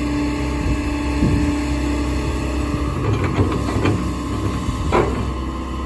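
JCB JS220LC 22-tonne tracked excavator running, its engine humming steadily while the arm and bucket are moved. A run of metallic clicks and knocks comes about three to four seconds in, and a single sharper knock about five seconds in.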